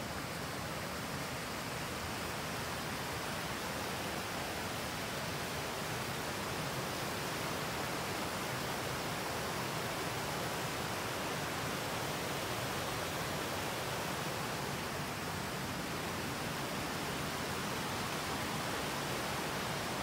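Mountain stream rushing over rocks, a steady, even rush of water.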